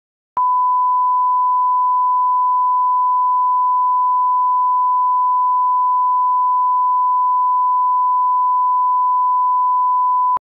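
A steady electronic test tone: one unbroken pure beep held at a single pitch for about ten seconds, switching on and off with a small click.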